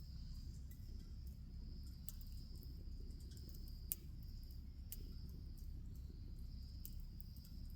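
Wood bonfire crackling, with scattered sharp pops, the loudest about four seconds in, over a low steady rumble. A high, thin insect trill comes and goes in the background.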